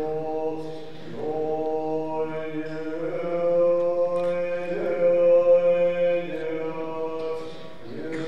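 Tibetan Buddhist monk chanting in long, slow held notes. The pitch changes every second or two, and the chant is loudest near the middle.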